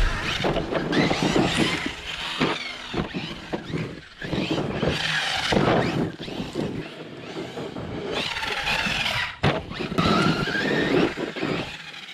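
Brushless electric motor and drivetrain of an Eachine EAT02 RC monster truck whining, the pitch rising and falling again and again as it speeds up and slows, over the noise of its tyres on loose dirt, with a few sharp knocks near the end.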